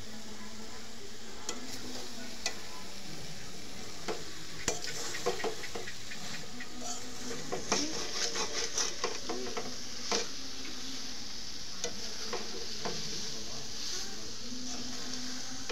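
A metal spatula stirs and scrapes spiced jujube (boroi) pickle in a metal kadai while it sizzles and fries, the water having cooked off. Clicks of the spatula against the pan are scattered through and come thickest about halfway through.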